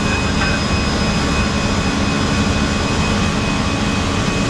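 Steady cockpit noise of an Airbus A319-112 in flight: the even rush of its CFM56 jet engines and the airflow, heaviest in the low end, with a few faint steady high whines over it.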